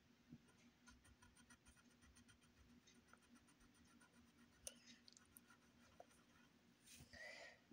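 Near silence: a colored pencil faintly scratching on paper as it colours in, over a low steady hum, with a brief louder rustle near the end.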